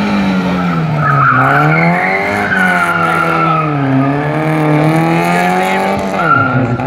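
Rally hatchback's engine revving hard, its pitch rising and falling several times as the car is thrown through tight turns. The tyres squeal briefly about a second in, again around two to three seconds in, and once more near the end.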